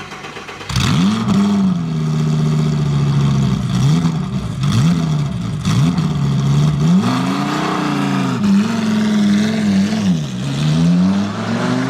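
Mercedes-AMG GT63 S's twin-turbo 4.0-litre V8 revved in a series of short blips, the pitch rising and falling back to idle about five or six times.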